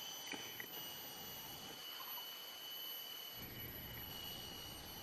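Faint steady high-pitched insect drone, a thin whine holding one pitch, over soft outdoor hiss; a faint low rumble joins past the halfway mark.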